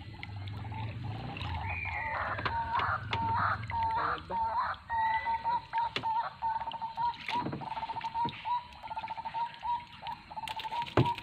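Animal calls: a short run of crowing calls from about a second and a half in, then a long, even, fast-pulsing trill at one pitch for about six seconds. Scattered light knocks run through it, and a sharp knock, the loudest sound, comes near the end.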